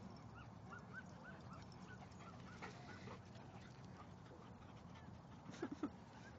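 Faint outdoor ambience with a quick run of short, distant bird calls over the first second and a half, and a couple of brief louder sounds a little over five seconds in.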